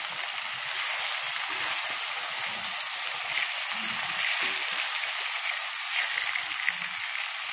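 Rohu fish pieces sizzling steadily as they fry in hot oil in a kadai. They are being fried only lightly, so they stay soft for the curry.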